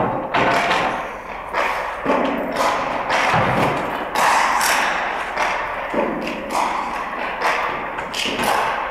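Hockey sticks knocking pucks and pucks landing on the ice, a string of irregular sharp knocks about one a second, each echoing in an empty arena.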